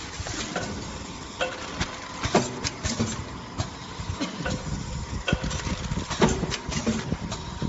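Drip-coffee bag packaging machine running: a steady mechanical hum with a faint held tone, broken by a stream of irregular clicks and knocks from its moving parts.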